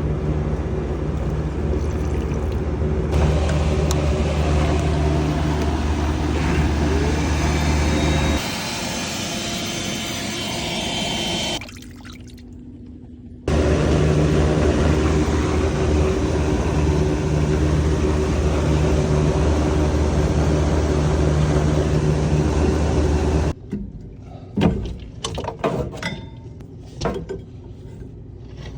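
A wet/dry vacuum runs steadily, drawing water and sludge out of a clogged condensate drain line with a rushing, gurgling sound. It changes note partway through, cuts off for a couple of seconds and starts again, then shuts off. A few knocks and clatter follow.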